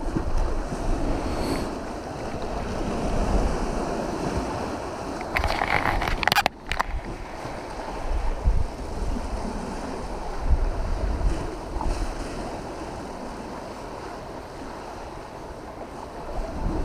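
Wind buffeting the microphone over the steady wash of small waves breaking along a pier wall. A brief rustling scrape stands out about five to six seconds in and cuts off suddenly.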